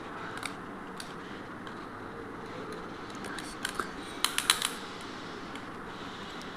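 Light clicks and taps of small plastic parts being handled and pried apart while a Bluetooth speaker is disassembled, with a quick run of about five sharp clicks about four seconds in.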